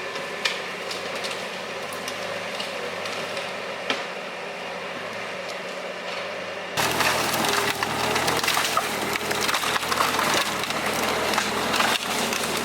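Bobcat skid steer engine running while brush and branches crackle and snap under the machine. About seven seconds in, the sound turns abruptly louder and denser with crackling.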